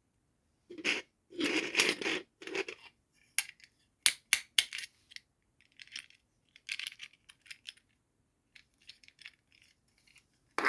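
Small plastic toy pieces and packaging being handled: irregular rustles, light taps and clicks, with a run of sharp clicks about four seconds in.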